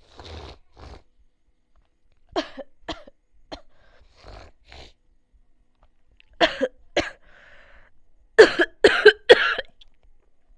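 A person coughing again and again in short, sharp bursts, mostly in pairs. A loudest run of three comes near the end.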